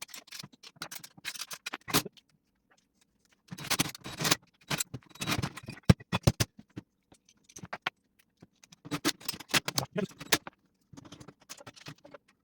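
Hand work on metal tool-box and caster hardware: irregular bursts of scraping and clicking, with one sharp click about six seconds in.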